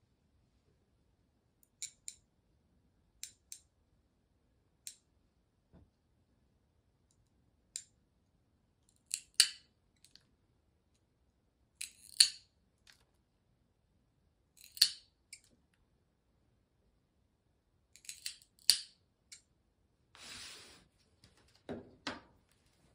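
Cat nail clippers snipping a tabby cat's claws: sharp clicks a second or a few seconds apart, often in quick pairs, the loudest ones about halfway and near the end. Near the end comes a burst of noise about a second long.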